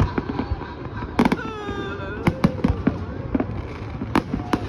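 Fireworks going off: a run of sharp bangs at uneven intervals, several loud ones about a second in and again near the two- and four-second marks, with a wavering pitched sound drawn out for about a second in between.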